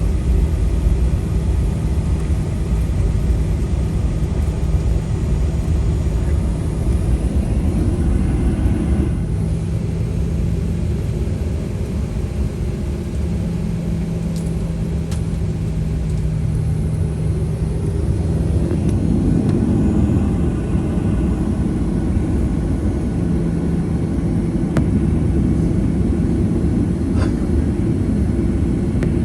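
Cabin noise of a Boeing 737-800 taxiing on CFM56-7B engines: a steady low rumble, with a low hum that drops out and comes back several times.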